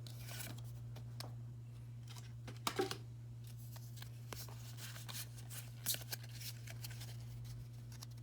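Pokémon trading cards being handled and slid past one another by hand: scattered soft clicks and brief rustles, two slightly louder near a third of the way in and past the middle, over a low steady hum.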